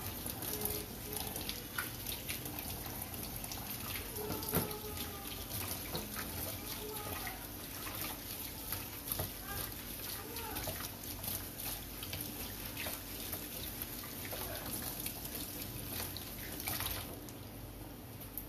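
Sweet potato doughnuts (kuih keria) deep-frying in a wok of hot oil: a steady sizzle, with the clicks of a utensil in the wok now and then. The sizzle eases near the end.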